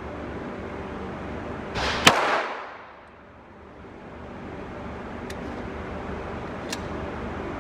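A single pistol shot about two seconds in, a sharp crack with a short noisy tail, followed later by two much fainter sharp cracks, over steady background noise.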